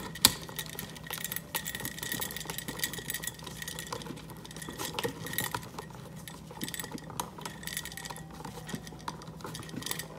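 Small irregular clicks and rattles of electrical wires and plastic wire nuts being handled and twisted together at an electrical box, over a faint steady hum.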